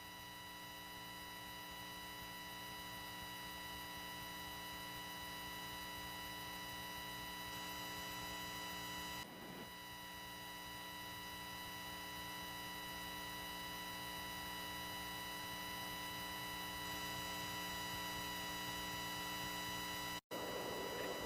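Faint, steady electrical hum with a stack of even overtones, slowly growing louder, with a brief break about nine seconds in and a momentary dropout near the end.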